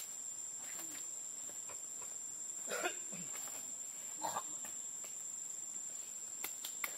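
Steady high-pitched drone of forest insects, with a few short soft rustles about three and four seconds in and small clicks near the end.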